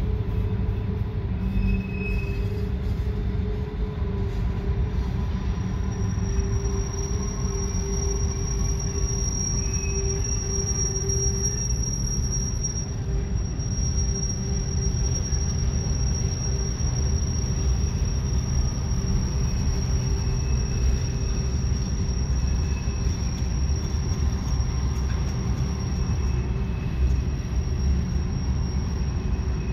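Norfolk Southern freight train rolling around a tight curve: a steady rumble of the cars, with a high, thin, steady wheel-flange squeal that sets in about six seconds in and holds.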